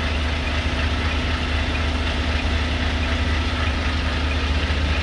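Semi truck's diesel engine running at a steady low idle, heard from inside the cab, as the truck creeps backward into a parking spot.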